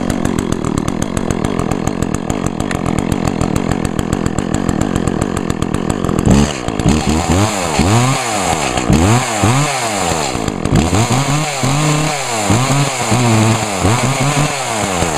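Echo CS-400 chainsaw's two-stroke engine running shortly after a cold start, idling steadily at first. From about six seconds in it is revved up and down over and over, the pitch rising and falling about once a second.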